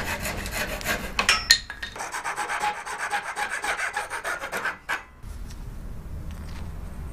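Hacksaw cutting through red deer antler in quick rhythmic strokes. After a short break, rasping strokes shape a piece of the antler for about three seconds, then stop, leaving a low hum.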